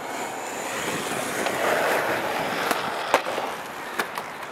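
Skateboard wheels rolling over rough concrete, followed by several sharp clacks of the board hitting the ground, the loudest about three seconds in.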